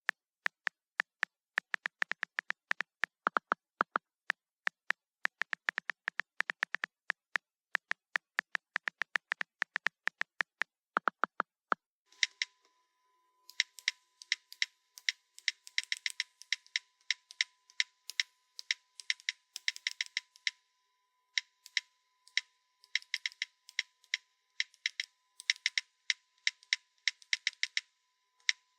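Typing on a mobile phone: rapid, even keypress clicks. About 12 seconds in, a second take begins, with clicks in uneven clusters and short pauses over a faint steady hum.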